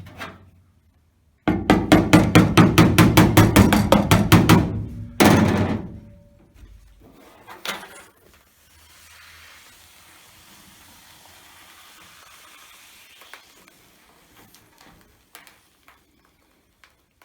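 Rapid hammer blows on the sheet-metal roof of a pickup, about six a second for some three seconds, then one more blow, while the roof is beaten back into shape.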